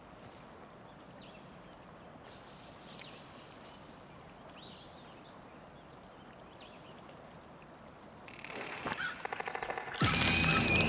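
Soft steady outdoor ambience hiss with faint, scattered bird chirps. About eight seconds in, a buzzing rattle of rapid pulses rises, and at about ten seconds a sudden loud hit sets off a ringing tone that keeps going.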